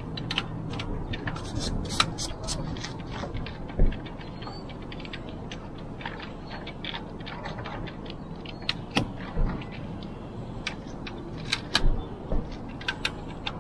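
Small metal clicks and taps of a bolt and nut being fitted by hand to an antenna plate at a sailboat's mast head, with a cluster of sharper clicks near the end.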